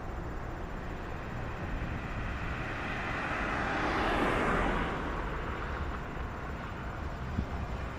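Outdoor rumble with a passing vehicle's noise that swells to a peak about four seconds in and then fades.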